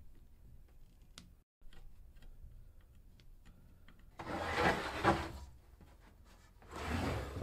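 Faint clicks of a screwdriver fastening a plastic drag chain to its bracket, then two longer bursts of rubbing noise as the black plastic drag chains and spiral-wrapped cable bundles are handled and moved about.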